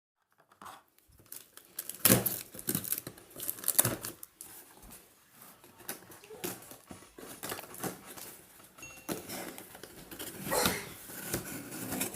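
Packaging being unwrapped: plastic and cardboard crinkling and tearing in irregular rustles, with sharp clicks and handling knocks.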